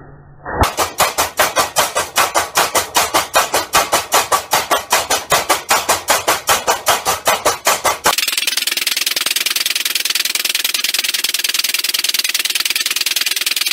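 Homemade electric tyre-driven power hammer pounding red-hot steel between its dies, loud and even at about five blows a second. About eight seconds in it changes to a much faster, continuous high-pitched rattle.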